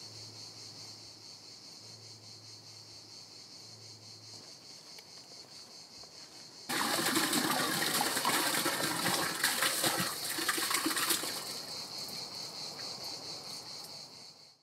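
Insects chirring steadily in a high band. About a third of the way in, water suddenly starts gushing and splashing as it is poured from a jug into a concrete water basin, loudest for a few seconds and then tapering off.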